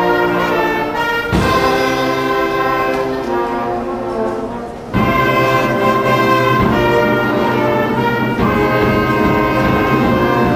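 A children's school orchestra of strings and brass plays held chords. About four seconds in the sound thins and fades, then the full ensemble comes back in strongly about a second later.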